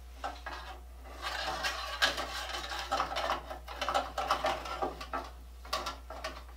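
A handsaw being fitted into the jaws of a saw vise: the steel blade scrapes and rattles against the vise for a few seconds, with a few sharp clicks near the end.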